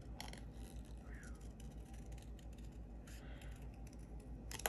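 Small craft scissors snipping cardstock, a few faint cuts with a sharper snip near the end.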